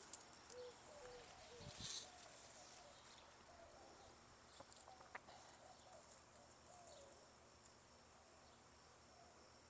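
Near silence: faint outdoor ambience with a steady high insect hum and a few faint, short bird calls, plus a brief rustle about two seconds in.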